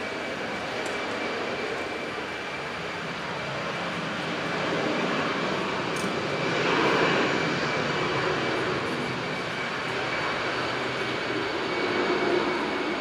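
Airbus A319's twin CFM56 turbofan engines running at low taxi thrust: a steady jet hiss with a thin high whine, swelling louder about seven seconds in and again near the end as the aircraft passes.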